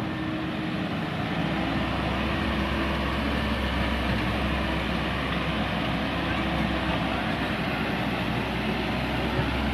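Mini excavator's diesel engine running steadily, with a low drone that sets in about a second in as the machine works.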